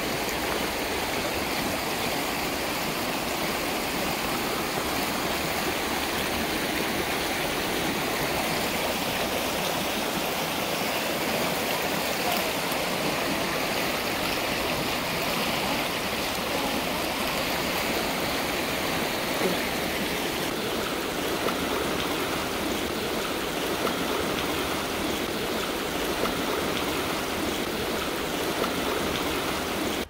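Steady, even rush of a fast-flowing river and waterfall, water running continuously with no breaks.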